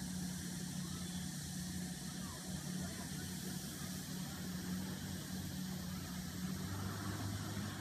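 Steady low hum of a distant engine, with an even hiss above it.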